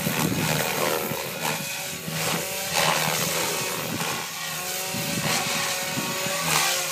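SAB Goblin 500 electric RC helicopter flying aerobatics at low head speed: the rotor blades whoosh in repeated surges as they bite the air, over a motor and gear whine that shifts up and down in pitch with the changing load.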